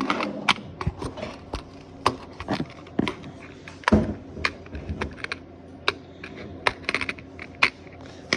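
Simple Dimple silicone push-bubble fidget toy being pressed, its bubbles popping in a string of sharp, irregular clicks about two a second.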